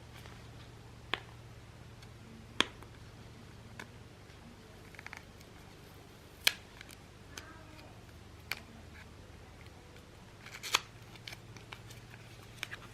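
Small retail packaging being opened by hand: about six sharp separate clicks and snips of plastic and card spread out, with light rustling in between.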